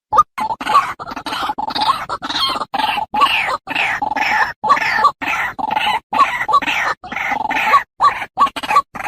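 A bird calling over and over in short, harsh squawks with falling sweeps, broken by abrupt gaps of dead silence.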